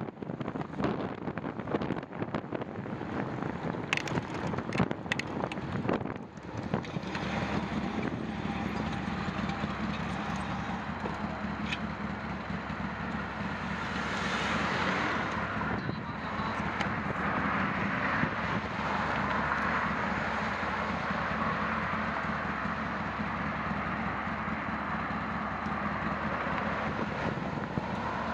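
City traffic passing a stopped bicycle at an intersection, with wind buffeting the handlebar-mounted camera's microphone and a scatter of sharp knocks and crackles in the first few seconds. From about halfway on there is a steady rush of wind noise as the bicycle rides along the street.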